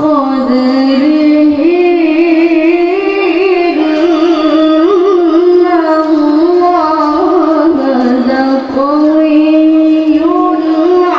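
A Quran reciter chanting in melodic tilawah style. One high voice holds long, ornamented notes that waver in pitch, with a brief break about eight seconds in.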